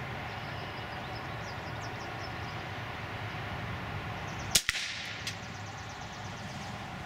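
One sharp crack of a Beretta ARX 160 .22 LR rifle shot about two-thirds of the way in, heard from beside the target some 25 yards from the rifle. Two fainter clicks follow just after it, over a steady background hiss.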